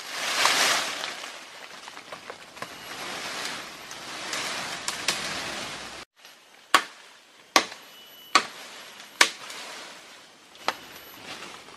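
Rustling through undergrowth and dry leaf litter, then, after a break, four sharp chops of a blade into wood about a second apart and one lighter chop later: cutting sticks for a pig snare.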